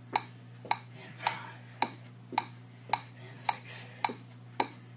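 Electronic metronome beeping steadily at about two beats a second, over a steady low hum.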